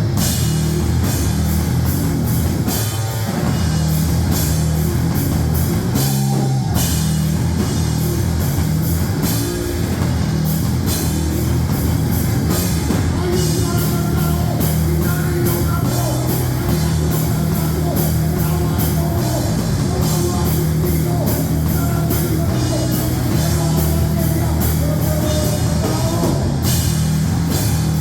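Loud heavy rock music: a fast, busy drum kit with dense cymbal hits over a sustained low band sound, without a break.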